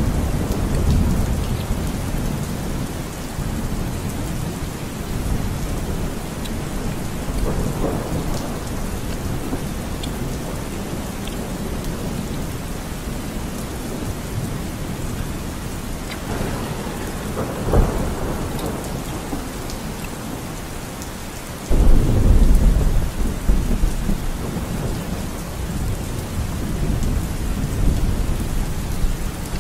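Rain falling steadily, with rolls of thunder rumbling low several times; a louder thunder rumble starts suddenly about two-thirds of the way through and lasts a few seconds.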